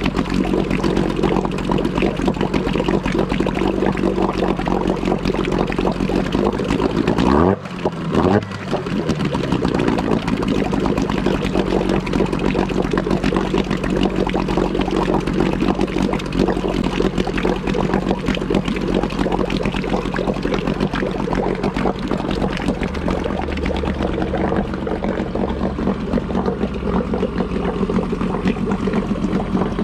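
Mariner 8 hp twin-cylinder outboard, built by Yamaha, running steadily out of the water after its first start from storage. About seven seconds in, its speed dips sharply and picks back up within a second.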